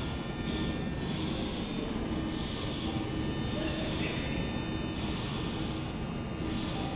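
NS-93 rubber-tyred metro train running at the station: a low rumble with a steady high whine and repeated hissing swishes about once a second.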